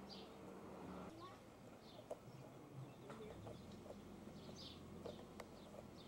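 Quiet garden ambience with small birds chirping faintly now and then.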